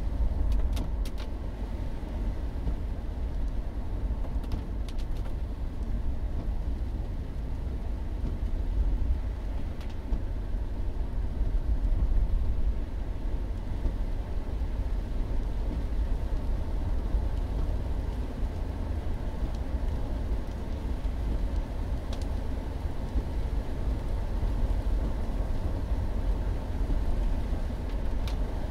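Steady low rumble inside a Mercury Grand Marquis's cabin as it drives on a wet road: tyre and engine noise, with a few faint ticks here and there.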